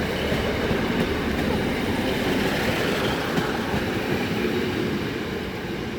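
ScotRail class 156 diesel multiple unit, a pair coupled together, pulling out of the station under power: the steady, heavy running of its underfloor Cummins diesel engines with wheel and rail noise. Called a bloody noisy train.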